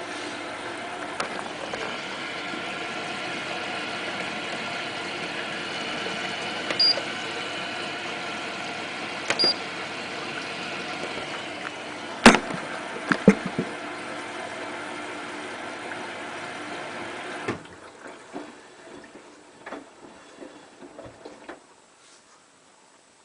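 Hotpoint Ultima WT960 washing machine running with water moving inside, a steady hum with several tones, with a few sharp clicks partway through. The running cuts off suddenly after about seventeen seconds, leaving scattered faint clicks.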